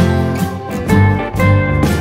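Background music with guitar: plucked notes changing every fraction of a second.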